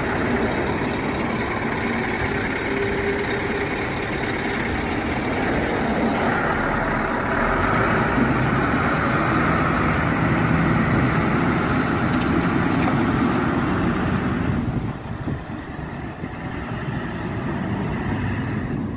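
Scania R620's V8 diesel engine running as the truck pulls slowly past, louder through the middle, then dropping away suddenly near the end.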